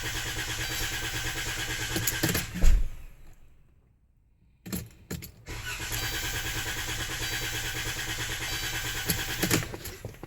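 Chrysler Town & Country van's engine being cranked by the starter without catching, in two attempts of a few seconds each: the first ends in a loud thump, and a few clicks come before the second. The engine is hard to start and won't fire.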